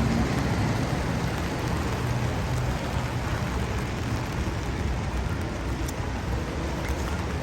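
Rain falling on a city street, mixed with the steady noise of passing traffic and a low engine hum.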